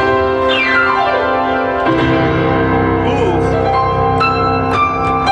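Grand piano played solo: a fast run sweeps down from the high register to the middle over ringing, sustained chords, then bright high chords are struck twice near the end.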